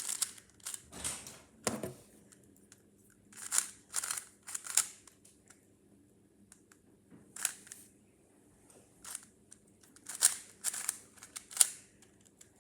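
A speed cube's layers being turned by hand, clicking and clacking in short flurries of turns with pauses between, as the solve continues past the first two layers.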